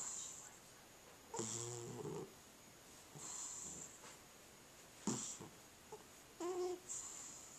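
Sleeping tabby cat snoring: a run of hissing, raspy breaths about every second and a half, some with a low buzzing tone, and a short higher-pitched squeak near the end. The owner takes this breathing for sleep apnea.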